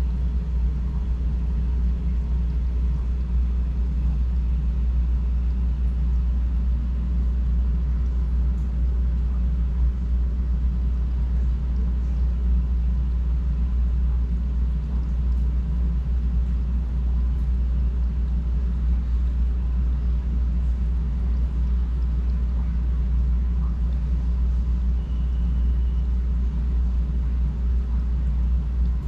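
Steady low hum and rumble of aquarium equipment, the filter and air pump running, with the tank's aeration bubbling.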